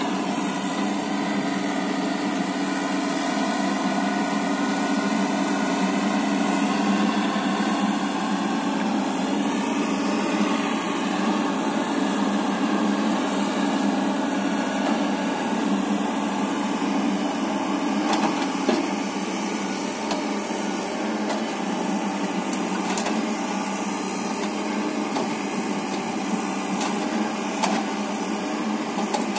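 Bulldozer's diesel engine running steadily, with a few faint knocks.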